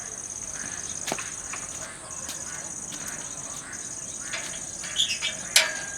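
Crickets trilling: a high, evenly pulsing song in long trains with short breaks. A few faint clicks and a sharp knock near the end.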